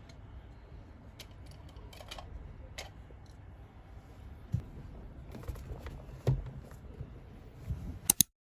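Scattered light clicks and taps from small objects being handled, over a low steady rumble, cutting off abruptly near the end.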